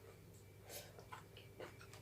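Faint chewing while eating: a few soft, short mouth clicks over otherwise near silence.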